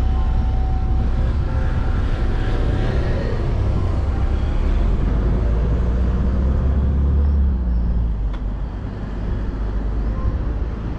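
Road traffic going by close at hand, a loud deep rumble that eases off about eight seconds in.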